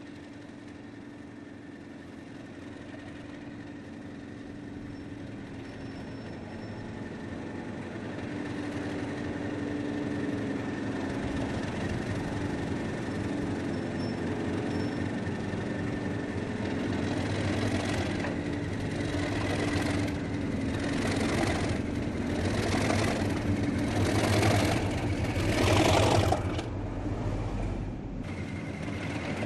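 Class 37 diesel locomotive running light and drawing slowly closer, its engine note growing steadily louder. In the last ten seconds a beat comes about once a second, loudest as the locomotive passes beneath, then the sound drops off sharply.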